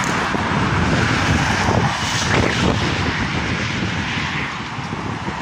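Steady rushing noise of wind on the microphone and road traffic, with a vehicle passing about two seconds in.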